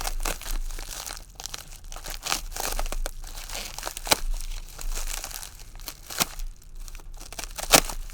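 Packaging being cut open with a sharp knife and pulled apart: an irregular run of crinkling, crackling and tearing, with one sharp snap near the end.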